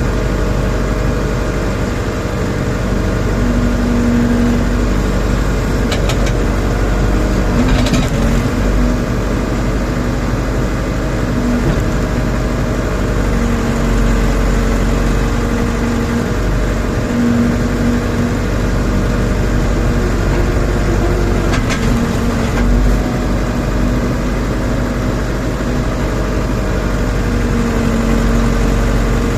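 Diesel engine of a Rondon backhoe loader running steadily while the machine works. A higher hum swells in and out every few seconds, and there are a few short knocks.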